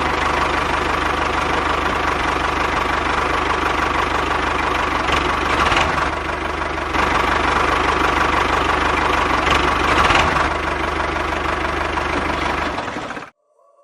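A small engine running steadily, then cutting off suddenly about a second before the end.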